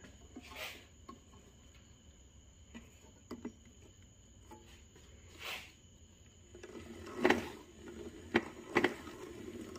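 Central Machinery 40981 band saw turned by hand, with faint handling clicks at first. About two-thirds of the way in, a steady rubbing begins with several sharp ticks as the drive belt slips on its pulley. With the motor unpowered and the belt slack, this slipping is normal.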